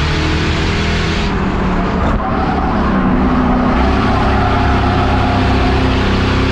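Race car engines running hard at racing speed, a loud, continuous engine sound with no break.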